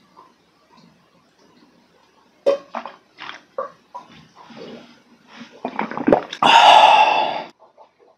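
A person gulping down a drink from a tall glass: faint, evenly spaced swallows, then louder gulps, slurps and gasping breaths as the glass runs empty. Near the end comes a loud, breathy voiced exhale lasting about a second.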